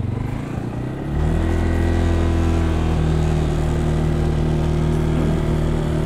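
ATV engine running low for about a second, then throttled up and running steadily as the quad drives off across the ice.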